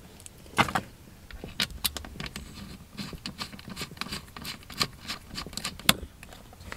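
Irregular small clicks, taps and scrapes of hands handling cables and fittings while wiring a car audio capacitor and amplifier, with a sharper click about half a second in and another near the end.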